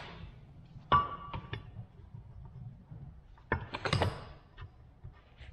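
Metal tools and transmission parts clinking as they are handled: a sharp, ringing clink about a second in, two lighter clicks just after it, then a cluster of knocks and handling noise around four seconds in.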